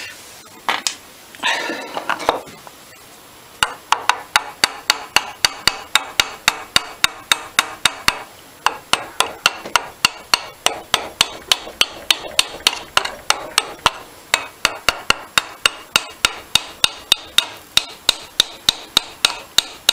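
Rapid, even light hammer taps on the aluminium body of an old Amal carburettor clamped in a vice, about four a second, in long runs with a couple of short pauses.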